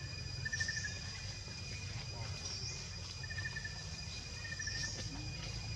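Outdoor ambience: a bird's short high call repeating about every two seconds, with brief trills in between, over a thin steady insect drone and a low rumble.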